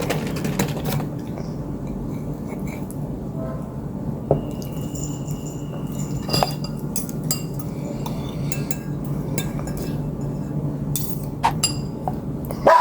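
Eating utensils clinking now and then against a bowl, with a few sharper clinks near the end, over a steady low hum.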